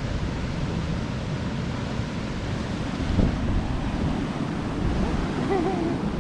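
Steady rushing of a waterfall, with wind rumbling on the microphone.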